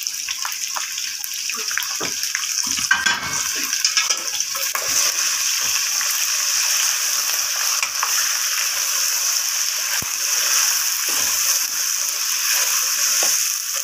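Pieces of boiled mutton sizzling steadily in hot oil in an aluminium pot as ginger-garlic paste is stirred in with a wooden spatula. Scattered knocks and scrapes of the spatula against the pot come through the sizzle, a cluster of them about three seconds in.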